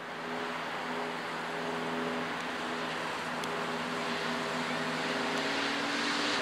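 Audi quattro rally car's turbocharged five-cylinder engine approaching under steady throttle, its note holding steady and creeping slightly higher in pitch as it grows gradually louder.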